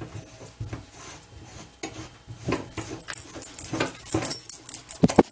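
A puppy making short noises amid scuffling and knocking, with the sharpest knocks about five seconds in.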